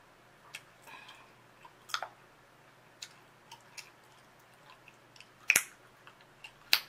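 Gum chewing close to the microphone: scattered small wet clicks and smacks, with a louder snap about two seconds in and two more near the end.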